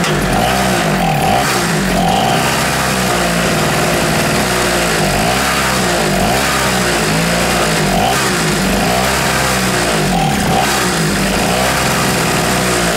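SIP two-stroke portable generator engine running unevenly, its speed rising and falling, while it is kept going on intake-cleaner spray. The owner takes this for a fuel blockage, with petrol only dribbling through to the carburettor.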